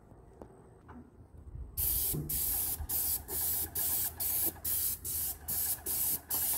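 Paint spray gun hissing as it sprays paint onto a wall. It starts about two seconds in and is triggered in short bursts, about two a second.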